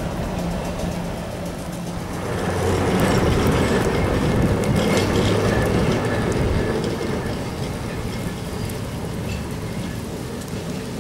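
Heritage electric tram running along its street track, a noisy rumble of wheels on rail with a low hum. It swells for a few seconds, then eases as the tram moves away.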